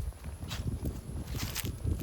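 Light wind buffeting the microphone in uneven low rumbles, with a few short sharp clicks. This is a moderate breeze, not a strong gust.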